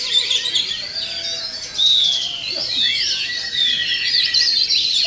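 Many songbirds singing at once in a dense, overlapping chorus, the sound of a songbird singing contest. Fast chatter and trills are mixed with longer whistled glides.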